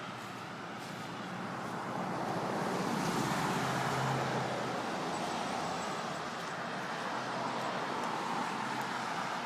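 Road traffic: a passing car's engine and tyre noise swells to a peak about three to four seconds in and then fades back into steady street noise.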